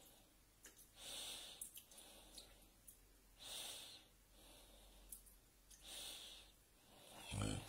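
Faint breathing close to the microphone, a soft breath every two to three seconds, with a dull thump near the end.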